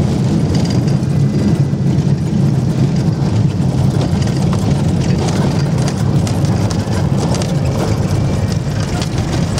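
Light aircraft's propeller piston engine running at low taxi power: a steady low drone, with scattered faint ticks and rattles as the plane rolls over the rough grass strip.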